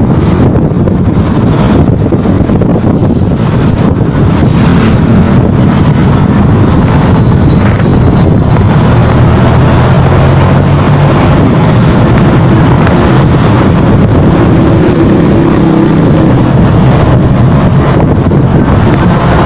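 Wind noise on the microphone of a moving motorcycle, over the steady running of its engine.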